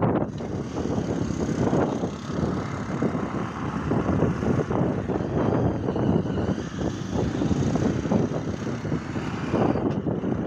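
Jet airliner's engines running on the runway, a continuous rumble with a faint high whine above it, mixed with wind gusting on the microphone.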